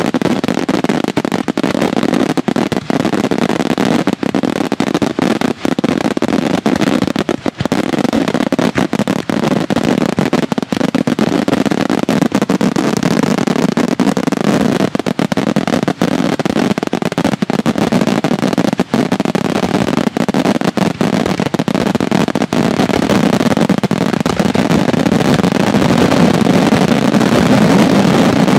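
Daytime aerial fireworks bursting in a dense barrage: many bangs follow one another so closely that they run together without a break, growing a little louder near the end.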